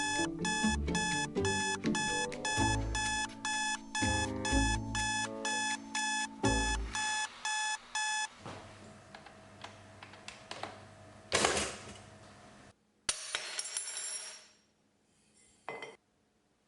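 Rapid electronic beeping, about four beeps a second, like an alarm clock, with music with low bass notes underneath; it stops about eight seconds in. A few short noisy sounds follow before it goes silent near the end.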